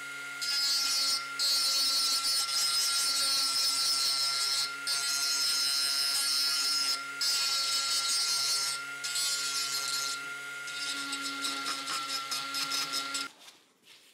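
Electric power tool running with a steady whine while a part is pressed against it in several long passes, giving a harsh high rasping hiss with short breaks. The contact grows lighter in the last couple of seconds, and everything stops suddenly about a second before the end.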